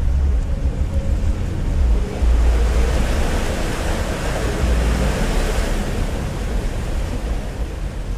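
Jeep Wrangler JK wading through a shallow creek: water splashing and churning around the tyres over a low engine rumble and wind on the microphone. The splashing swells in the middle and fades as the Jeep climbs out of the water near the end.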